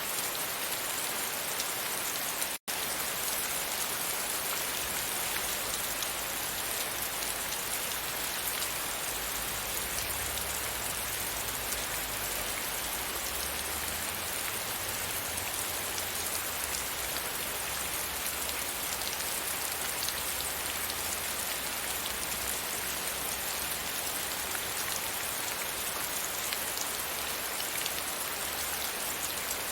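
Steady rain falling against a window, a dense even wash of drops with a faint low rumble underneath. The sound cuts out for a split second about three seconds in.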